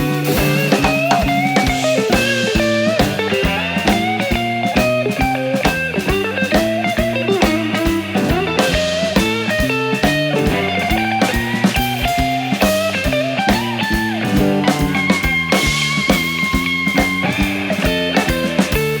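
Rock band playing an instrumental break: electric guitar playing a melodic lead line over bass and a steady drum-kit beat.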